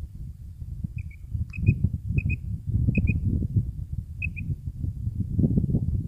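Quail calling in five quick, high-pitched double notes, spaced a half second to a second apart, over a louder low rumble of wind buffeting the microphone.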